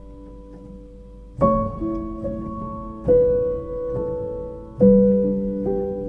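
Background piano music: slow chords struck three times, each ringing out and fading before the next.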